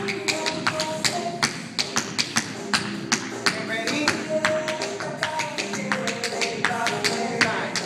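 Tap shoes striking a wooden floor in quick, irregular taps during a tap-dance routine, over pop music with a steady beat.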